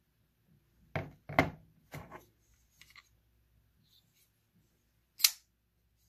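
Damned Designs flipper folding knife being flipped open and closed: a quick run of sharp metallic clicks and snaps of blade and lock about a second in, lighter clicks after, and a single crisp snap of the blade locking open near the end.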